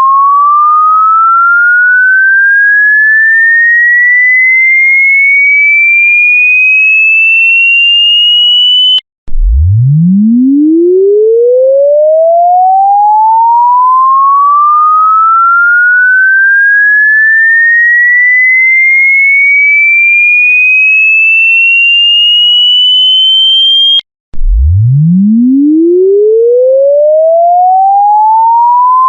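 Electronic sine-wave tone sweeping steadily upward in pitch, from a low hum to a high whistle, over about fifteen seconds. It breaks off for a moment twice and starts again from the bottom each time.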